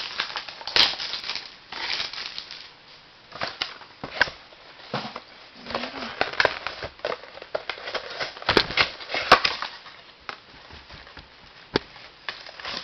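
Plastic wrapping on a box of trading cards crinkling and tearing in irregular bursts as the box and its first pack are opened.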